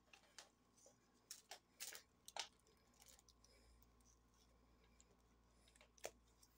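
Scissors cutting open a toy's plastic packaging: a few faint, sharp snips and crinkles about a second or two in, and one more near the end.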